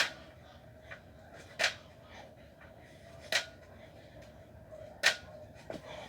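Four sharp slaps from burpee repetitions, about one every 1.7 seconds, over a faint steady hum.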